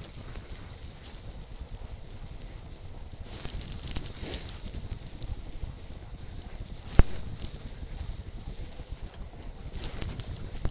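Snow crunching and scraping under a dog-drawn sled gliding behind a team of huskies, an irregular crackly patter throughout, with one sharp knock about seven seconds in.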